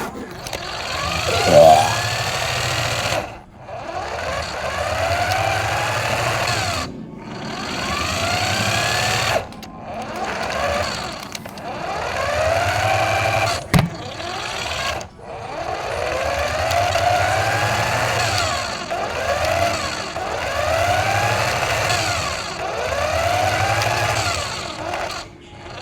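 A radio-controlled car's electric motor whining in repeated bursts of a few seconds, each rising and falling in pitch as the car speeds up and slows down, with a sharp knock near the middle.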